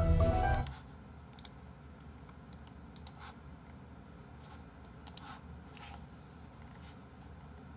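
Sparse clicks at a computer: a few single clicks and quick double clicks spread through a quiet stretch. A snatch of background music stops abruptly within the first second.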